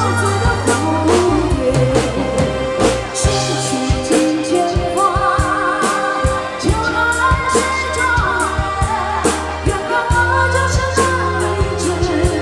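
Song with a singer over a steady drum beat and bass, the sung melody line wavering with vibrato.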